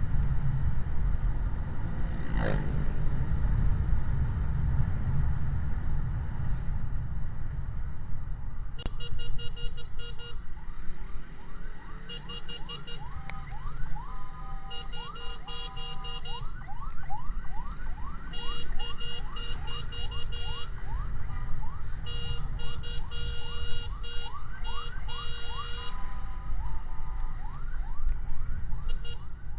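Electronic emergency siren in a fast yelp, sweeping upward about three times a second, broken up by bursts of steady alternating tones. It starts about nine seconds in and falls away near the end. Underneath runs a steady low rumble of wind and road noise, with a single quick falling sweep about two seconds in.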